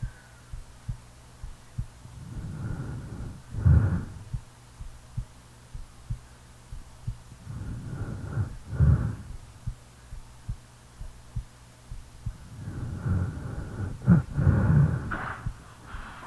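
A sleeping person's heartbeat thumping steadily, with slow snoring breaths swelling and fading about every five seconds, three times.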